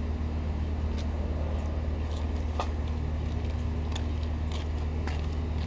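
A steady low mechanical hum, even in pitch, with a few light sharp clicks scattered through it.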